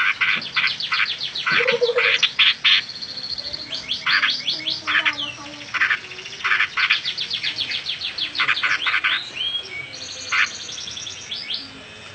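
Songbird singing in fast runs of short, repeated chirping notes, pausing briefly between runs.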